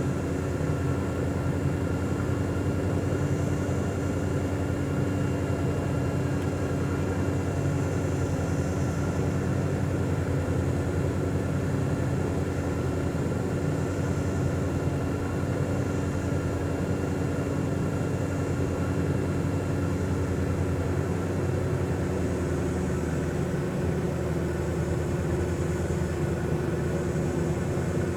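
A steady mechanical hum with a low drone and a few fixed tones, unchanging throughout, like a fan or motor running.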